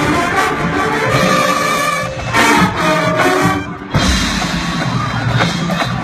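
Marching band playing, the brass carrying sustained chords over percussion. The sound breaks off briefly just before four seconds in, and the band comes back in with a heavy low hit.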